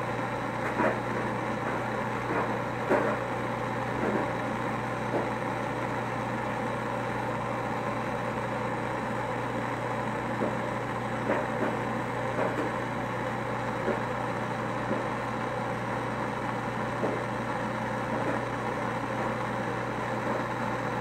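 Handheld gas torch burning with a steady rushing hiss, with faint small ticks now and then.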